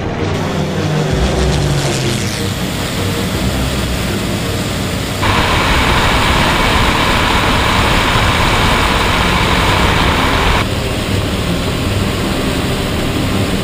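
Onboard sound of warbird piston engines in formation flight: the Corsair's Pratt & Whitney R-2800 radial drones with wind rush in the cockpit. From about five seconds in, the sound cuts to a louder, harsher rush of wind and engine noise from a camera on the P-38 Lightning, between its Allison V-12s. It switches back to the quieter cockpit drone near the end.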